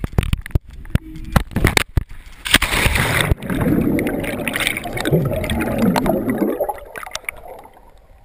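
A few sharp knocks, then a loud splash into water about two and a half seconds in. It is followed by several seconds of muffled underwater gurgling and bubbling around the camera, which fades near the end.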